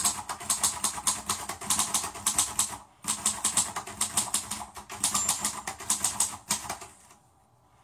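Fast, even clicking like typing on a keyboard, about five clicks a second, in two runs of roughly three seconds each, fading out near the end.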